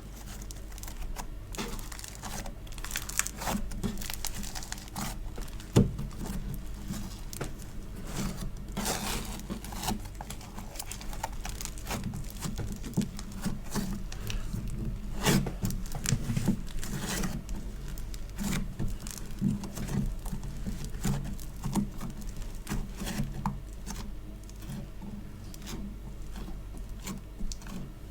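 Fingers squeezing, pressing and pulling sticky store-bought foam clay and slime, making a dense, irregular run of small crackles, clicks and sticky pops. A sharper click stands out about six seconds in, and another about fifteen seconds in.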